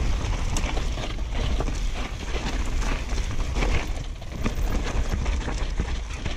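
Downhill mountain bike descending a dirt forest trail: wind rumbling on the GoPro's microphone, tyres rolling over the dirt and the bike rattling over bumps with many small knocks.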